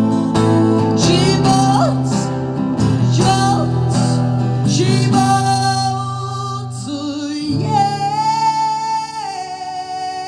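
Acoustic guitar strummed in the closing bars of a song. From about three-quarters of the way in, a wordless sung note is held over the final chords and steps down once.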